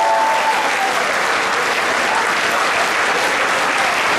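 Audience applauding steadily in a large room.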